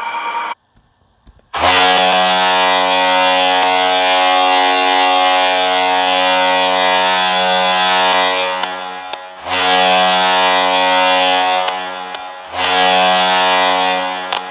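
Cleveland Monsters arena goal horn sounding three steady blasts: one long blast of about seven seconds, then two shorter ones with brief gaps between. Before it, the previous sound cuts off suddenly and there is about a second of silence.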